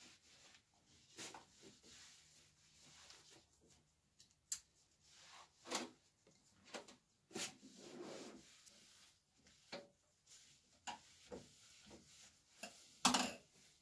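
A polyester cloth rubbing over the metal casing of a coffee roaster in short, irregular wiping strokes, with a few light knocks as it is handled. The loudest rub comes near the end.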